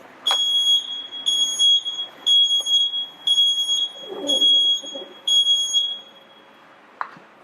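Electronic warning beeper of a folding mobility scooter sounding six times, one high beep about every second, as the scooter is driven under power.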